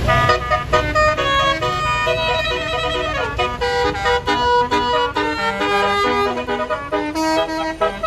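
Tour bus's basuri telolet horn playing a fast tune of short, stepping notes that starts suddenly, over the low rumble of the bus.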